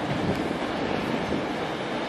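Avanti West Coast Class 390 Pendolino electric train rolling slowly past over the station tracks: a steady, even noise of wheels and motors with no distinct clacks.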